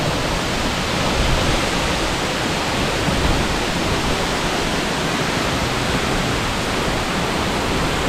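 Tall waterfall pouring down a rock face into a pool: a steady, even rush of falling water.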